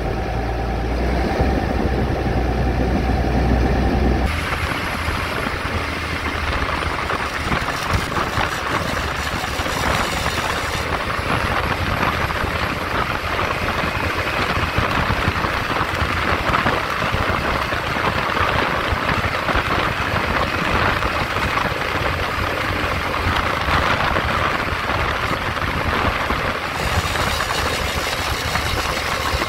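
Massey Ferguson 6480 tractor engine running, at first a steady low hum. About four seconds in the sound changes abruptly to a noisier, rattlier engine sound, and it stays that way to the end.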